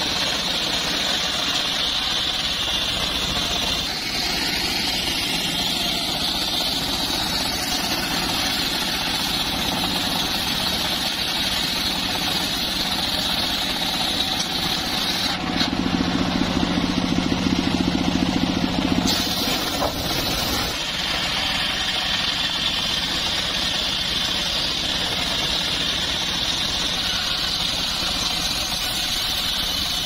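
Engine-driven circular sawmill running, its large blade ripping lengthwise through a timber beam with a steady high whine over the engine's drone. Just past the middle, for about three and a half seconds, the sound grows louder, with a strong low hum.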